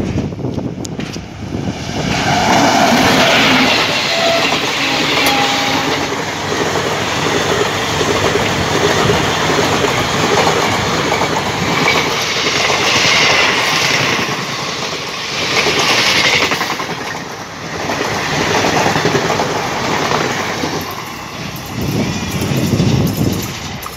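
Indian Railways express train of ICF passenger coaches passing at speed, its wheels clattering over the rail joints in a loud, continuous rush. The noise builds about two seconds in and eases off near the end.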